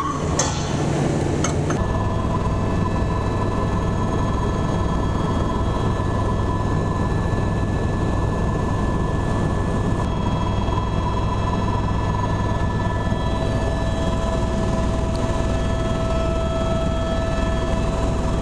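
Steady engine drone heard from inside a small sightseeing aircraft's cabin, holding one even pitch with several steady tones over a low hum. For the first couple of seconds a ride inside a road vehicle is heard instead, before the sound changes abruptly.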